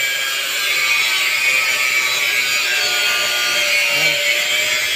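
Angle grinder running steadily, cutting off the excess edges of fibre-cement (Hardiflex) ceiling board.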